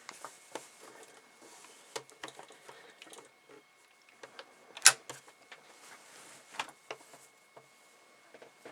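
Irregular light clicks and taps from handling a sewing machine and fabric while setting up to sew, with one sharp, loud click about five seconds in. The machine is not running.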